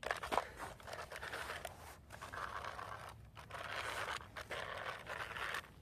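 Scraping and rustling noise in irregular stretches with short breaks.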